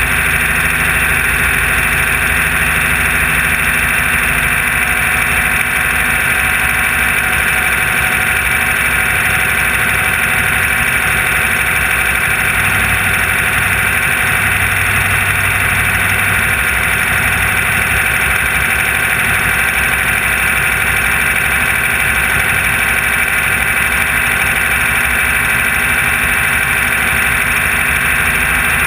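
Off-road race car's engine running steadily, heard from inside the car, loud and unbroken with no changes in level.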